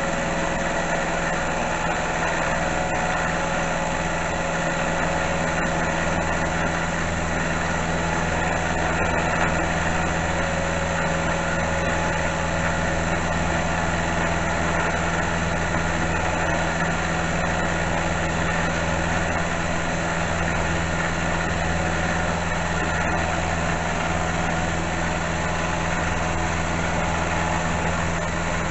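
Small milling machine running steadily, its motor humming with no change, while the power feed drives the table through a light finishing cut.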